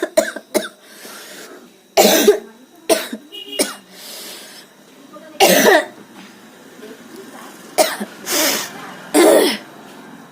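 A woman coughing over and over: a series of short, separate coughs, some close together in pairs, with a little throat clearing.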